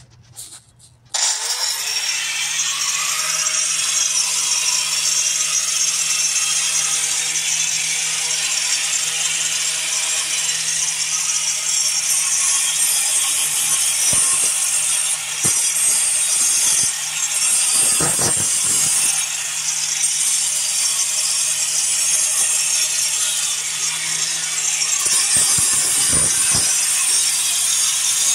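Electric angle grinder starts suddenly about a second in and runs steadily with a low motor hum, its disc grinding against a brick and throwing brick dust.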